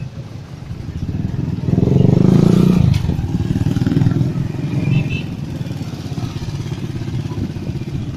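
Small motorcycle engine of a passing motorcycle-sidecar tricycle, running close by in street traffic. It is loudest about two to three seconds in.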